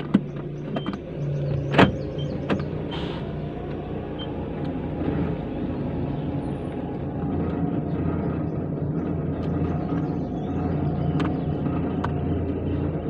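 Car engine running with a steady low hum, heard from inside the car. A few sharp clicks and knocks come in the first three seconds.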